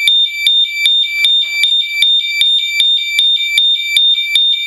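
LaserShield home security system's siren sounding after its panic alarm is triggered: a loud, high-pitched electronic two-tone pattern, pulsing about five times a second.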